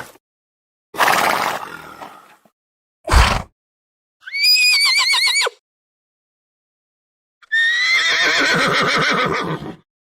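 A series of separate horse calls with silence between them: short breathy calls about one and three seconds in, a high, quavering whinny about four seconds in, and a longer whinny from about seven and a half seconds.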